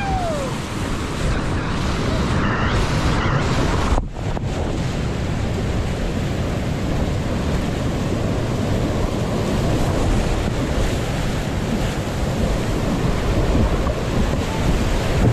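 Class 5 creek whitewater rushing and churning around a kayak, heard close up from the boat, with wind buffeting the microphone. The sound briefly drops out about four seconds in.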